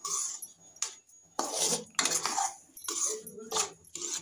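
A metal spoon scraping and clinking against a kadhai as semolina is stirred while it roasts in ghee, in a run of quick, uneven strokes.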